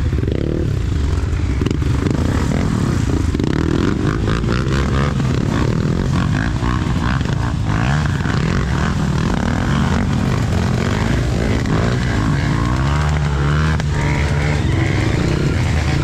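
Honda CRF trail bike engines running on a forest trail, the revs rising and falling with the throttle.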